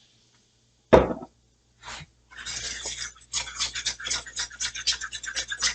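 A metal fork tapping and scraping against a skillet, stirring a beer-and-flour roux. There is a single clink about a second in, then rapid, repeated scraping strokes from about two seconds in as the pan drippings are worked off the bottom and the lumps stirred out.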